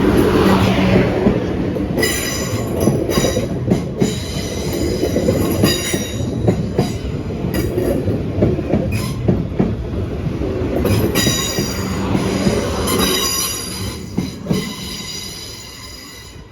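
A train passing at close range, rumbling, with its wheels squealing high and shrill, first about two seconds in and again from about eleven to fifteen seconds. The sound fades away near the end.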